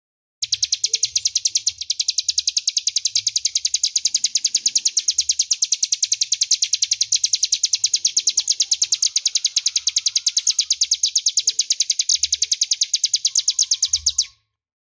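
Ciblek gunung (a prinia) singing its 'ngebren' song: one long unbroken trill of sharp, high notes repeated rapidly and evenly for about 14 seconds, then stopping abruptly.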